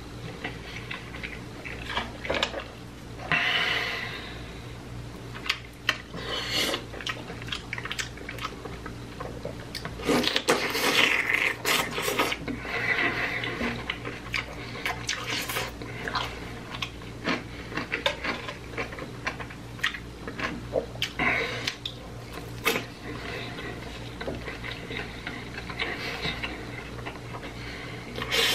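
Close-miked eating sounds: chewing and wet mouth smacks, with irregular clicks and rustles as food and its containers are handled, over a steady low hum.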